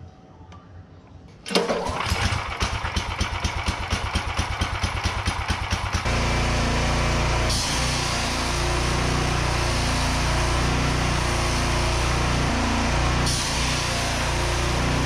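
Petrol pressure washer's 13-horsepower engine comes in suddenly and runs with a rapid, even beat. About four seconds later the spray gun is opened: engine and pump settle into a steady, heavier run under load, with the hiss of the high-pressure jet from the sandblasting attachment's nozzle.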